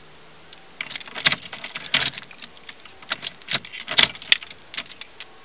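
A key ring jangling and clicking against the steering column as the ignition key is turned and worked, in a run of irregular clicks and jingles. No engine cranks or runs: the 1989 GMC Jimmy fails to start, which the owner puts down to a loose battery connection.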